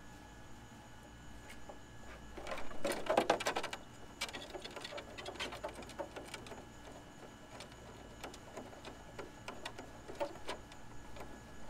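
Hand screwdriver driving small screws through a clear polycarbonate RC car body to mount a drag wing: a dense run of plastic clicks and rattles about three seconds in, then scattered light ticks.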